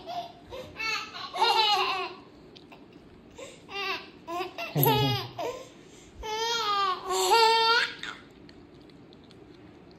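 A small child babbling and laughing in short, high-pitched bursts, about six of them, with pauses between.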